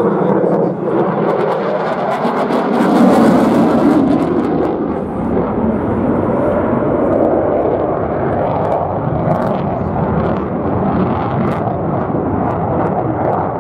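Eurofighter Typhoon's twin EJ200 jet engines, a loud, steady jet rush as the fighter manoeuvres in its display, swelling with a crackle around three to four seconds in.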